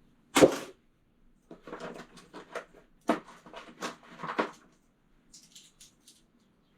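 Loose metal ratchet sockets clattering as they are handled and sorted: one sharp knock about half a second in, then a run of rattling clinks for a few seconds, and a few faint light clicks near the end.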